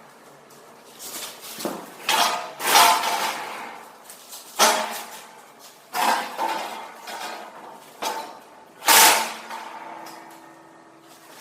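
Heavy steel pieces knocking and clanking together, about seven sharp metallic strikes at irregular intervals, each ringing briefly.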